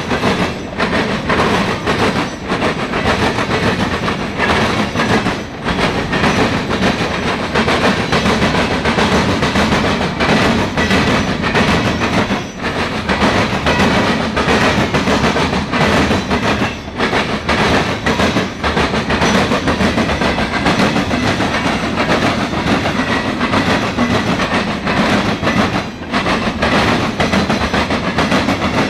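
Freight cars of a mixed freight train rolling past at close range: a loud, steady rumble of steel wheels on the rails with a continuous clatter of knocks as the wheels cross rail joints.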